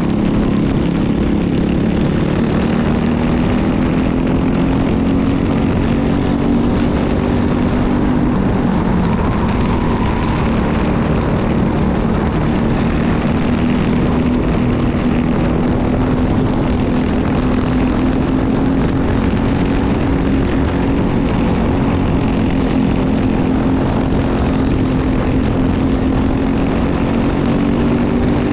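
Briggs & Stratton LO206 single-cylinder four-stroke kart engine running hard at race pace, heard from on board the kart. It is a continuous, loud engine note whose pitch shifts only slightly through the corners.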